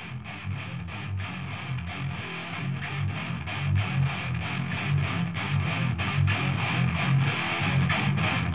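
Thrash metal recording: distorted electric guitar playing a fast riff of evenly spaced, chugging strokes, growing louder.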